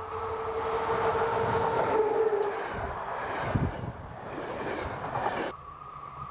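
Electric locomotive-hauled train passing close by, with a loud rushing rail rumble and a steady tone that dips slightly in pitch and fades about two and a half seconds in as the locomotive goes by, then rough wheel and coach noise. The sound cuts off suddenly near the end to a quieter, distant train.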